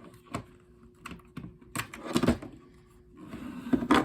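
Clicks, taps and knocks of hands working at the alarm's stuck backup battery, an irregular string of sharp clicks that grows busier near the end.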